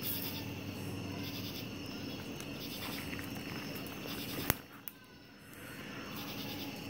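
Night insects chirping in a steady pulsing chorus over a low steady hum, with one sharp click about four and a half seconds in.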